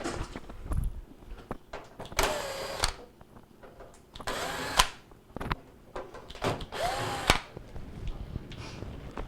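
Power drill driving out Phillips screws from a microwave's sheet-metal outer cabinet, in three short runs of the motor, each speeding up and winding down. Clicks and handling knocks fall between the runs.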